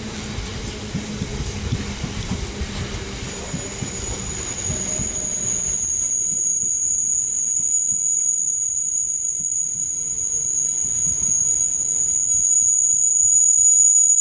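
Biomass hopper wagons of a freight train rolling past with a low rumble and clatter. About three seconds in, a high, steady squeal from the wheels sets in and grows louder as the rumble dies away.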